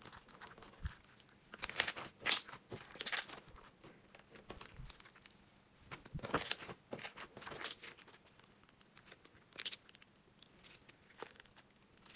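Thick slime with foam balls being stretched, folded and pressed by hand, crackling and popping as trapped air bubbles burst, with sticky tearing as it pulls apart. The crackles come in irregular bursts a few times, with quieter squishing between.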